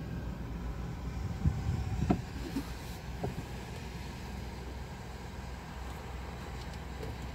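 Car engine idling, a steady low rumble heard inside the cabin, with two sharp knocks about a second and a half in and again half a second later.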